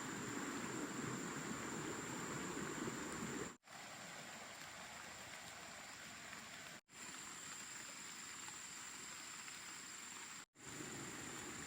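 Steady hiss of water outdoors, with a thin, high, steady whine over it. The sound drops out abruptly for a moment three times.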